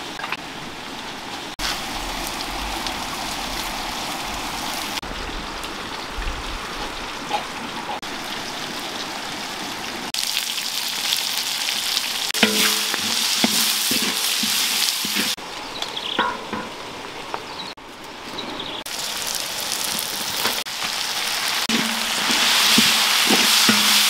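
Chopped duck, lemongrass and leaves sizzling in a large wok over a wood fire, the sizzle changing abruptly several times. In the second half a wooden spatula stirs the food, knocking and scraping against the wok.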